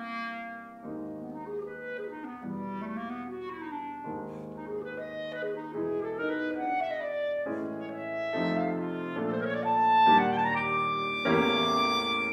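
Clarinet and Steinway grand piano playing a classical duet: a clarinet melody over piano chords struck every second or two, swelling loudest about ten seconds in.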